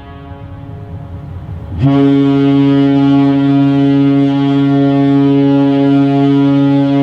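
A large ferry's horn sounds one long steady blast, starting abruptly about two seconds in: a deep tone with many overtones. Before it, the echo of an earlier blast dies away.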